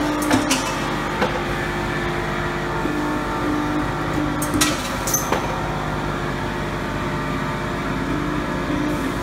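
Sunrise PM-120LT-CNC hydraulic punching machine running a test cycle. It gives a steady hum, a whine that starts and stops several times as the CNC table moves, and a few short sharp knocks near the start and about halfway through.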